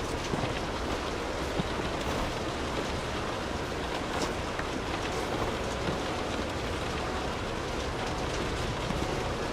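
Steady rain falling, with scattered sharper drops striking close by.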